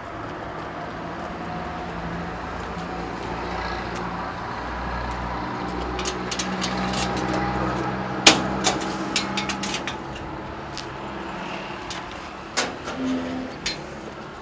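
A key being worked in the lock of a metal door: a run of sharp metallic clicks and rattles about six to ten seconds in, then a few knocks as the door is opened. Under it runs a steady low hum like a nearby vehicle engine.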